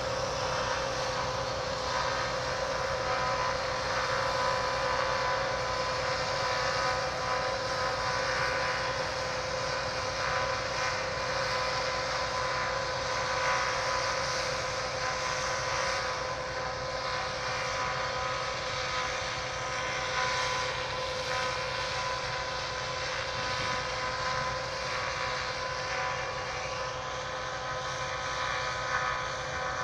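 Combine harvester cutting barley: a steady mechanical drone with a constant whining tone over it.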